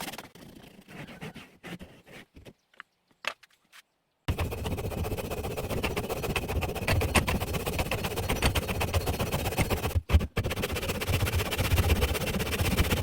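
Woodworking hand tool on wood: a few light clicks and taps, then from about four seconds a loud, steady rasping scrape made of rapid fine strokes, broken by a short dropout near ten seconds.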